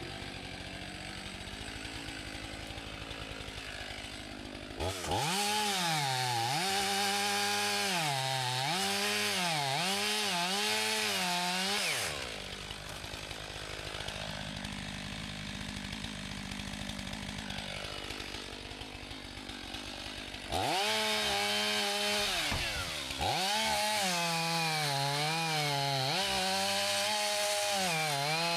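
Chainsaw cutting the fallen tree's trunk: it runs quietly at first, then revs into the cut about five seconds in, its pitch sagging and recovering again and again as it bogs under load. It drops back to a quieter run for several seconds, then revs into the wood again near the end.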